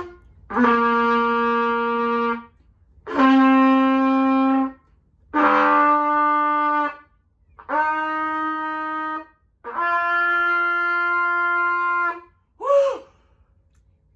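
Trumpet played by a first-day beginner: five long, separate notes, each a step higher than the one before, the opening notes of a scale. Each note is held about a second and a half, with short breaths between.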